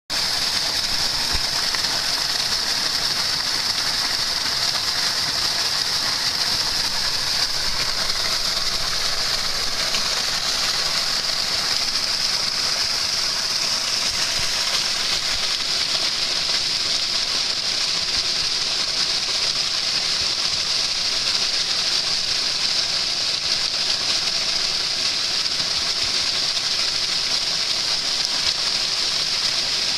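Shallow stream water flowing and splashing over stones: a steady, even rush with a bright hiss.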